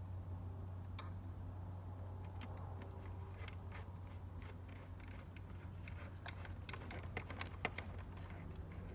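Hand screwdriver driving screws into the plastic housing of a 1998 Porsche Boxster instrument cluster: a run of small clicks and ticks, thickest near the end, over a steady low hum.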